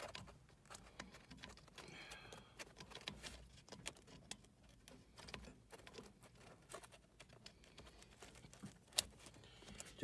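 Faint rustling and small clicks of a wiring harness and plastic connector being handled at a Carrier variable-speed blower motor, with one sharp click about nine seconds in as the high-voltage plug snaps home on the motor.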